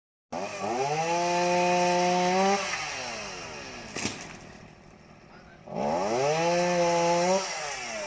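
Chainsaw revved up twice, each time climbing to a high steady pitch for a second or two, then dropping back to idle, with a sharp click in between.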